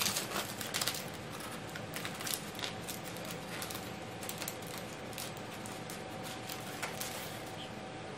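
Gold foil number balloons crinkling and rustling in the hands as string is threaded through them: irregular small crackles and ticks over a faint steady hum.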